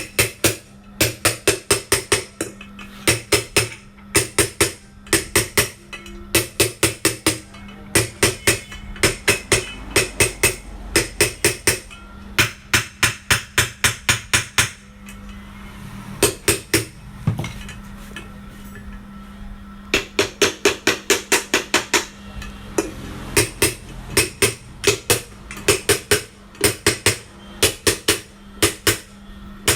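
Light, quick hammer taps on a ceiling fan's metal body, seating the cover onto the bearing; the taps are kept gentle so the body does not crack. They come in runs of about four or five sharp, ringing knocks a second, with short pauses between runs.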